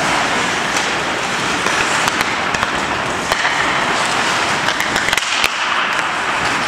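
Ice hockey play: a steady hiss of skate blades on ice, with scattered sharp clacks of sticks and puck, several of them coming close together in the second half.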